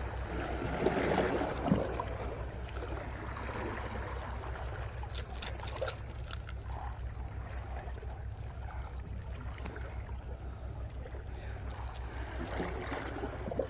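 Sea water lapping and washing against shoreline rocks over a steady low rumble, with a few faint clicks as a lure is worked free of a landing net.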